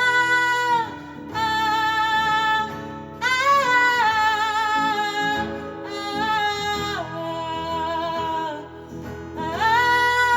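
Live band music: a voice singing long held notes that bend slightly in pitch, over instrumental accompaniment.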